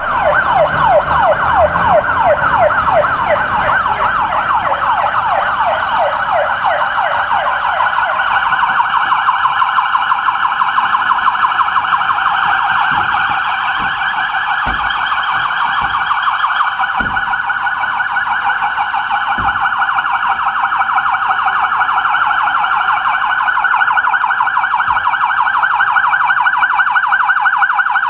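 Police siren yelping: short rising sweeps repeating several times a second, turning into a faster warble about eight seconds in.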